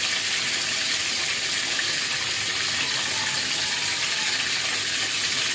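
Hot oil sizzling steadily around split, sun-dried fish frying in a wok: an even, unbroken hiss.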